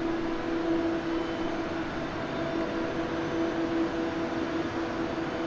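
Steady hum of an electric airport express train standing at the platform with its doors open: a drone holding one pitch over an even hiss.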